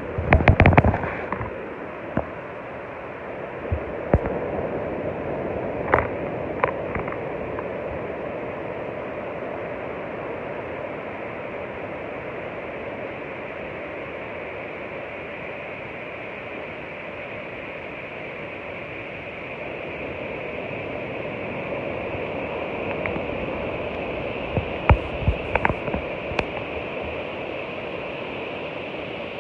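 Ocean surf giving a steady, even wash of noise. A few sharp clicks or knocks cut through it near the start and again about 25 seconds in.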